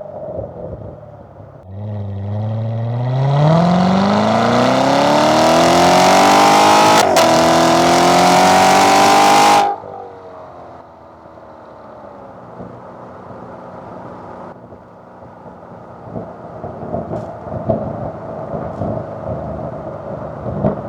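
Chevrolet C7 Corvette's 6.2-litre LT1 V8 exhaust on a hard wide-open-throttle pull, the note climbing steadily in pitch and loudness for about eight seconds. It drops off sharply when the throttle closes, then burbles on the overrun with irregular pops and crackles near the end.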